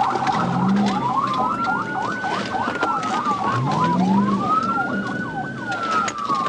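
Police sirens: one in a slow wail rising and falling twice, with a second siren's fast yelp sweeps layered over it.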